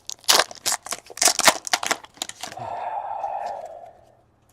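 Crinkling and tearing of packaging as a new box of trading cards is opened: a quick run of sharp crackles, then a steady rustle for about a second and a half before it stops.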